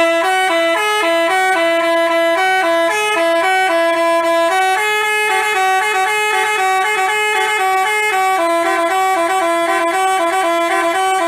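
Multi-tone Basuri telolet bus horn playing a quick tune of short stepped notes in two voices, starting suddenly.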